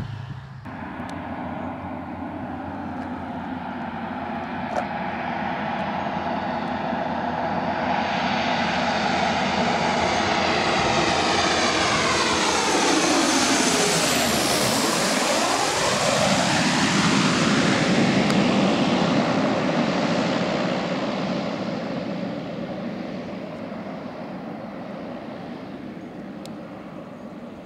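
Twin-engine turboprop airplane flying low overhead. The engine and propeller sound builds steadily, peaks as it passes about halfway through with a clear drop in pitch, then fades away.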